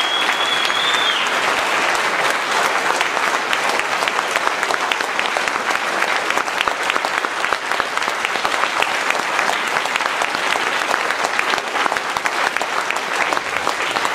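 Audience applause: dense, steady clapping from a large crowd. A single high whistle is held for about a second at the start.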